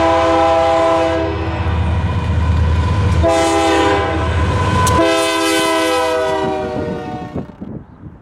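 Diesel freight locomotive's air horn sounding a chord in three blasts, long, short, then long, over the low rumble of the approaching train. The pattern is the close of a grade-crossing horn signal. The sound fades near the end.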